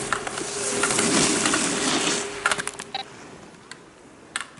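Slalom skis carving on hard snow, a scraping hiss that swells and then fades. From about two and a half seconds in it gives way to a run of sharp clacks as the racer knocks the hinged plastic slalom gate poles aside.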